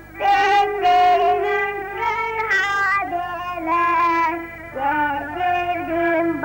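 A young girl singing a song into a microphone, with a children's band of recorders, melodicas and accordions playing along; the tune moves in steps between held notes.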